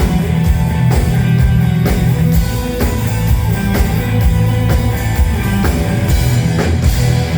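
Live rock band playing: drum kit and guitars over heavy bass, with steady drum hits.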